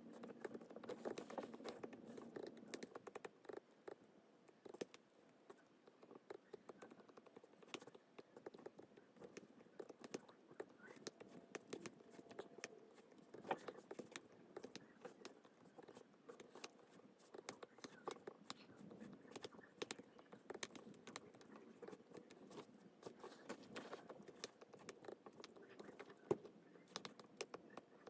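Stylus tip tapping and scratching on a tablet's glass screen: many quick, faint clicks at an uneven pace.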